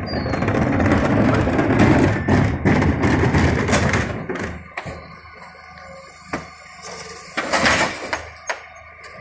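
Refuse truck working at the rear: the engine and hydraulics run with a loud steady noise for the first four seconds or so, then die down. Then come single knocks as green wheelie bins are set onto the Terberg split bin lifters, and a loud clatter about seven and a half seconds in as two bins are raised and tipped.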